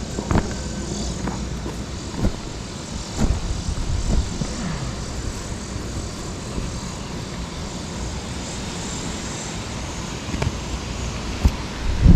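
Push mower's small gas engine running steadily, with a few short knocks and clicks in the first few seconds.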